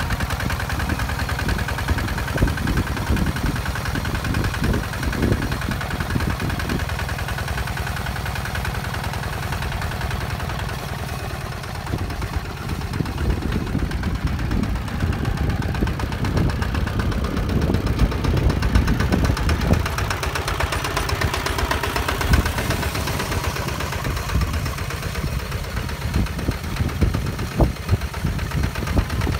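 Two-wheel walking tractor's single-cylinder diesel engine running steadily under load as it pulls a disc plough through dry soil, with irregular low thumps.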